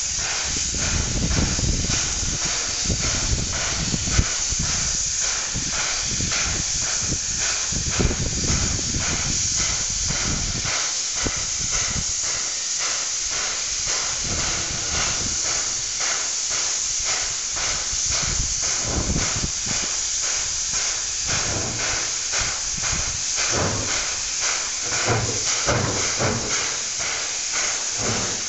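SY-class 2-8-2 steam locomotive working hard as it pulls away with a long train of loaded coal wagons: an even beat of exhaust chuffs over loud, continuous steam hiss, with a low rumble at times.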